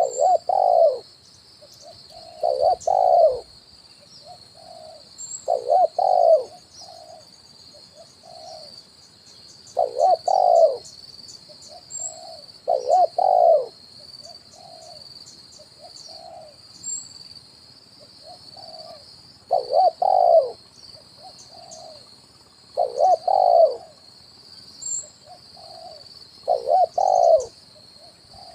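Spotted dove (tekukur) cooing its 'kuk 1' song: loud phrases about every three seconds, with softer single coos between them. A steady high insect buzz runs behind.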